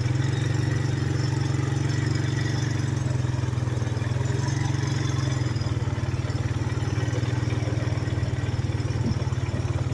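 Off-road vehicle engine running steadily at low, even revs, a constant low drone with a fast pulsing beat.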